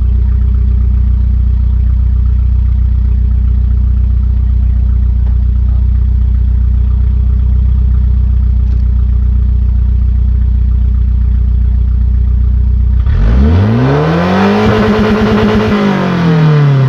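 Volvo 240 engine running with no exhaust, the pipe cut off ahead of the catalytic converter: a loud, steady idle, then about two-thirds of the way through a single rev that rises, holds briefly and falls back.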